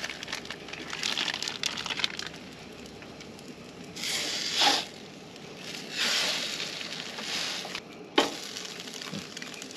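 A spatula scraping under eggs on a propane camp-stove griddle, mixed with plastic cheese-slice wrapping crinkling, in several short rasping stretches, with a sharp knock about eight seconds in.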